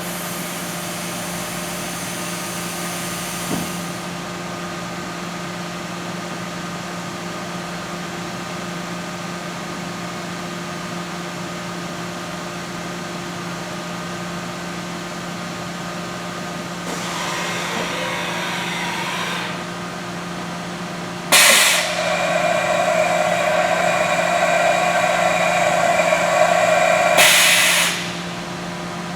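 Haas EC-1600 horizontal machining center running a program: a steady machine hum with several fixed tones, with a hiss over it for the first few seconds. About two-thirds of the way through a louder whirring stretch starts suddenly and stops about seven seconds later.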